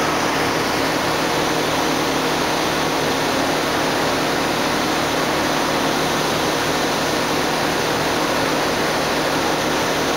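Campbell vertical CNC grinder running under flood coolant: a steady, even rushing of coolant spray and the grinding wheel on the workpiece.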